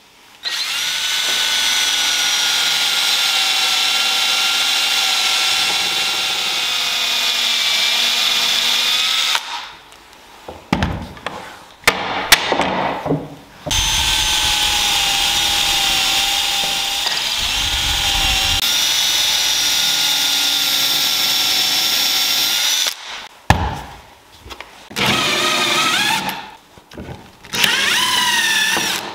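Electric drill boring into a laminated ash-and-walnut bow riser: two long, steady runs of about nine seconds each, with a few knocks between them. Near the end come two short runs in which the pitch rises and falls as a countersink bit cuts the holes.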